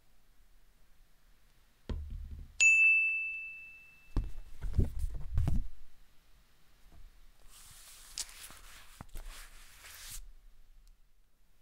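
Animation sound effects: a soft thump, then a single bright bell-like ding that rings out and fades over about two seconds. A cluster of low knocks and thumps follows, then a few seconds of scratchy, hissing brushing broken by small clicks, like a paintbrush scrubbing on a canvas.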